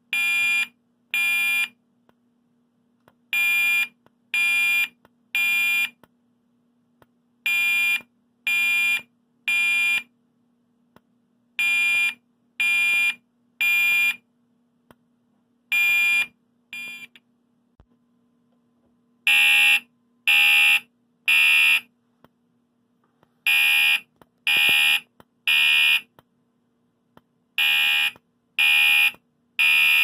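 Gentex Commander electronic fire alarm horn sounding a 2400 Hz temporal-three evacuation signal: three half-second beeps, a pause of about a second and a half, then again. Just past the middle the pattern breaks off partway through a group, and a couple of seconds later it starts again noticeably louder.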